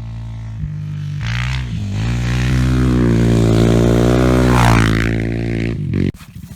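Sport quad's single-cylinder four-stroke engine revving hard, its pitch climbing and dipping with the throttle several times. About six seconds in it drops suddenly to a much quieter low rumble.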